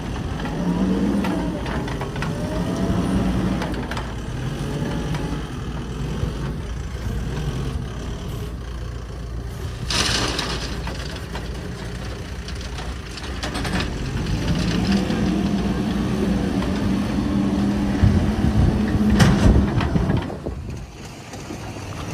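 Heavy diesel earthmoving machinery running, its engine revving up and down under load. There is a short loud noisy burst about ten seconds in and another near the end.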